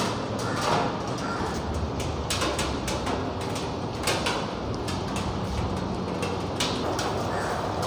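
Ducati motorcycle's V-twin engine idling through its twin silencers: a steady low rumble with scattered sharper clicks.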